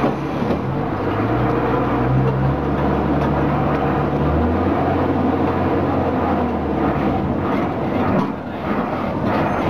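Diesel engine of the Botchan Ressha replica steam locomotive running under way, over the rumble of its wheels on the rails. The engine note rises about a second in and drops to a lower, steady drone around the middle.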